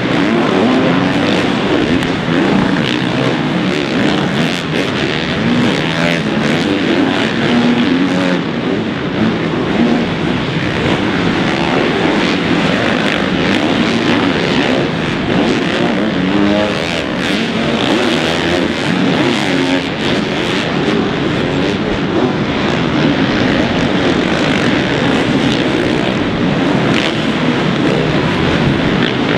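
Several four-stroke motocross bikes running hard on a supercross track, their engines revving up and down as riders accelerate, shift and back off over the jumps.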